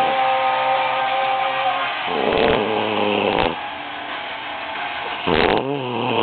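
Loud snoring: one long snore about two seconds in, then two shorter ones near the end, over music playing in the background.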